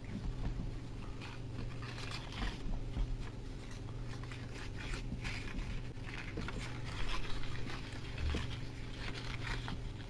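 A sheet of paper rustling and crinkling in irregular scrapes as it is folded and a flap is worked into another layer, over a steady low hum.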